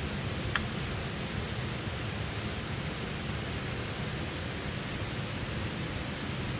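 Steady rushing of falling water from a waterfall, with one sharp click about half a second in.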